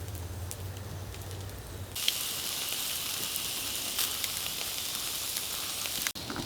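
Skewered meat and potato pieces sizzling over an open campfire, with scattered crackles from the fire. The steady sizzling hiss starts abruptly about two seconds in, after a low hum.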